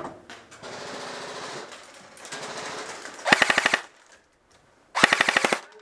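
Airsoft gun firing on full auto: two loud bursts of rapid, evenly spaced shots, each about half a second long and about a second and a half apart, with fainter stretches of rapid fire before them.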